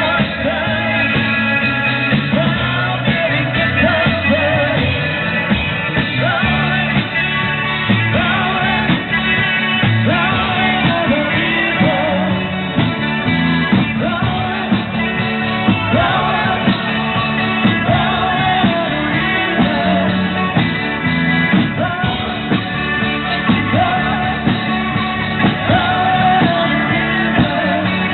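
Live rock band playing a song, with a lead vocal over the band.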